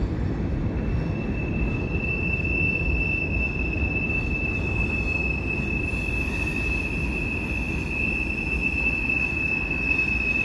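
Freight train cars rolling over a bridge on a sharp curve, with a steady low rumble. About a second and a half in, one steady high-pitched wheel squeal comes in and holds: steel wheels squealing against the rails in the curve.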